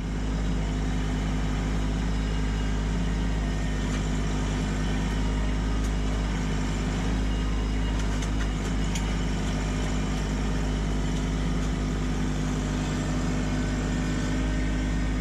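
Kubota LX2610 compact tractor's three-cylinder diesel engine running steadily while the front loader's root rake grapple digs at and lifts a granite boulder. A few faint knocks come about halfway through.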